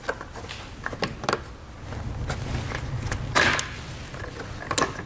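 Scattered sharp clicks and knocks of a car's plastic bumper trim being handled and snipped, with one longer scraping rustle of plastic about three and a half seconds in.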